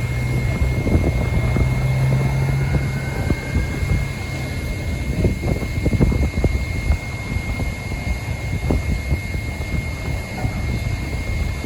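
Boeing 777-300ER's GE90 turbofan engines spooling up for takeoff: a steady high whine over a rough, gusty low rumble.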